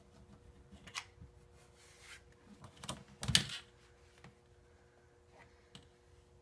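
Crafting tools and fabric being handled on a cutting mat: a few light clicks and knocks, then a louder clatter and rustle about three seconds in as the plastic ruler is shifted and the printed cotton fabric sheet is lifted and turned.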